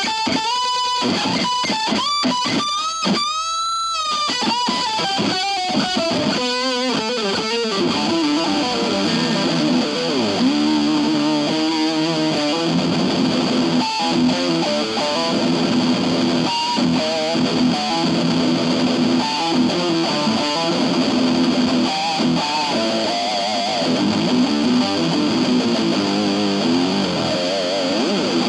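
Electric guitar, an IYV Thinline Tele, played through a Keeley compressor and a Pigtronix Space Rip synth pedal into an Orange Crush 20 combo amp. For the first several seconds there are synth-like tones that sweep up and down in pitch, then held notes that warble.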